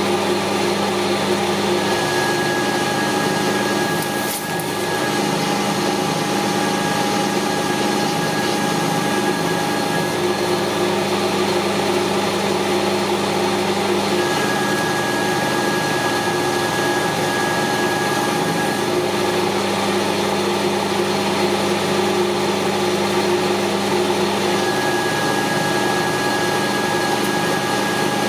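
Metal lathe running steadily, its motor and gears humming, while it takes turning passes on large round stock. A thin high whine comes and goes three times.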